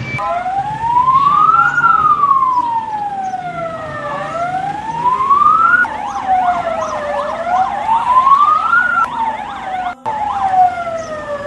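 Emergency vehicle sirens from a passing convoy: a slow wail rising and falling every few seconds, joined about six seconds in by a second siren sweeping up and down much faster.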